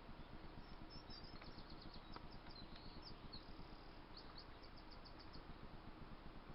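Faint bird chirping: scattered short high chirps, some sliding in pitch, then a quick even run of notes about four seconds in, over a low steady background hiss.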